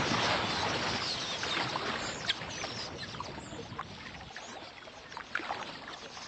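Water splashing and churning, easing off about four seconds in, with scattered short, high chirps from a flock of small birds.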